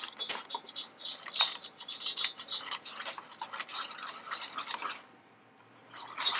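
Wire balloon whisk beating a thin flour batter in a stainless steel bowl, its wires clicking and scraping quickly against the metal. The whisking stops for about a second near the end, then starts again.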